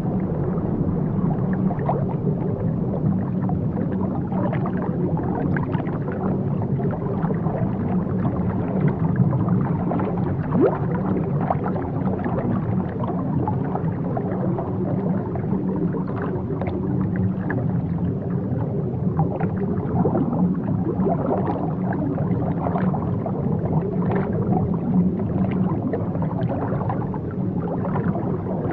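Aquarium air bubbler running: a steady stream of bubbles gurgling and ticking, over a low hum.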